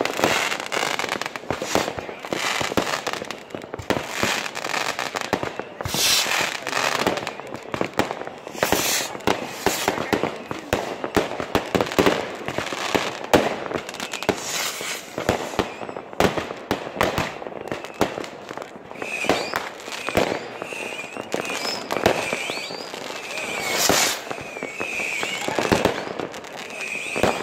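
New Year fireworks and firecrackers going off together: a dense, continuous barrage of bangs and crackling. In the last third, short wavering whistles repeat through the bangs.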